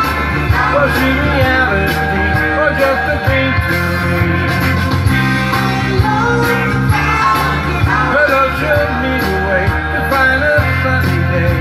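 Pop-rock song playing with guitar and a steady drum beat, with singing over it.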